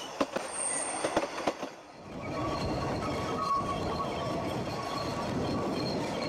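Narrow-gauge train carriages running on the rails, coasting downhill with only the brakes in use. For the first two seconds there are sharp clicks of wheels over rail joints. After that comes a steady rumble with a faint thin squeal of wheel flanges on a curve.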